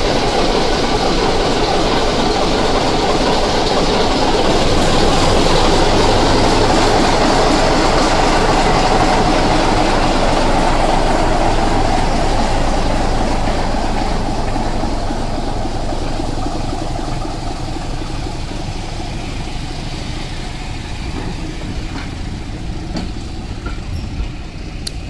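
BR Class 24 diesel locomotive 5081 pulling a train away past the listener, its Sulzer engine running loud and at its loudest a few seconds in. The engine sound then fades as the coaches roll by, with a few faint clicks of wheels over the rail joints near the end.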